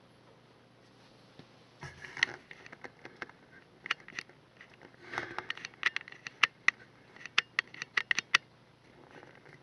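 A run of sharp, irregular clicks and taps, sparse at first and coming thicker and louder in the last few seconds, with some rustling.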